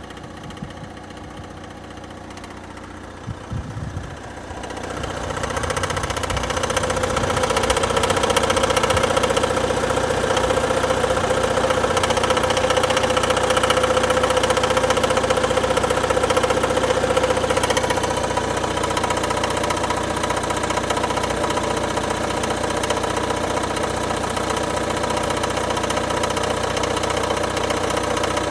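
Renault dCi diesel engine idling with a knock from the crankshaft pulley, the sign of a failing pulley damper. A few low thumps come early, and it gets much louder about five seconds in, then holds steady.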